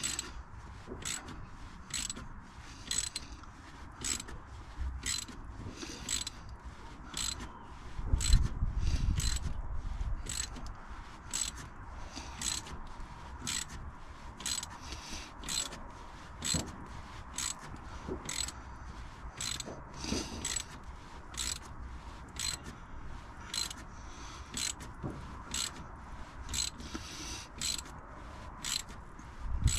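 Hand ratchet clicking steadily, about two clicks a second, as it winds in the centre bolt of a harmonic balancer puller drawing the crank pulley off the engine. A louder low rumble comes in for a couple of seconds about eight seconds in.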